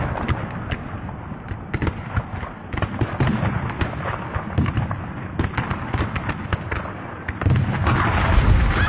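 Film battle sound: many musket shots cracking irregularly over a low rumble, with a louder blast near the end.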